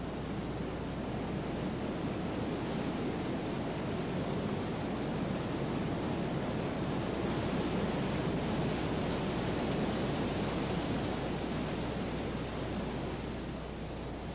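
Steady rush of water over river rapids, a little brighter from about seven to eleven seconds in, over a faint low hum.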